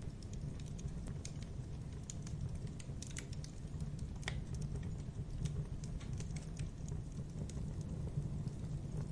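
Wood fire crackling: burning logs giving off frequent small irregular pops and snaps over a steady low rumble of flame, with one sharper pop about four seconds in.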